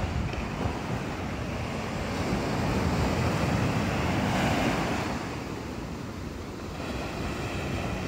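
Ocean surf breaking and washing up the beach, with wind rumbling on the microphone. The wash swells a couple of seconds in and eases off about five seconds in before building again.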